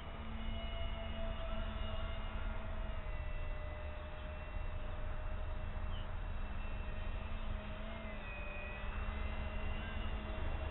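Wind buffeting the microphone with a constant low rumble, over the thin whine of the Hydrofoam RC flying boat's twin electric motors and propellers, its pitch wavering slightly as the plane flies around.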